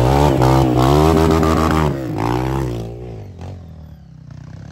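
Off-road motorcycle engine revving hard, its pitch rising and falling under the throttle, with a second shorter burst of throttle about two seconds in; after about three seconds it drops away to a much quieter, steady running sound.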